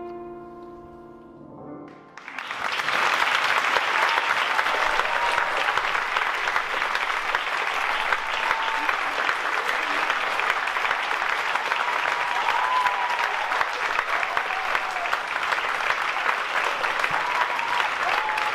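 The last notes of slow instrumental music die away, then an audience bursts into loud, sustained applause about two seconds in.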